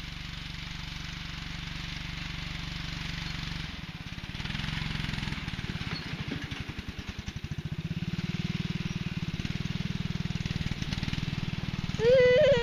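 Garden tractor's small engine running under load as it pushes snow with a front dozer blade, its pulsing note shifting about halfway through and growing louder as it comes closer. Near the end a loud human call, rising and falling, rings out briefly over it.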